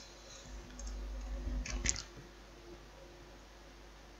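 A few short computer mouse clicks, one about a second in and a quick pair near two seconds in, over a faint steady hum.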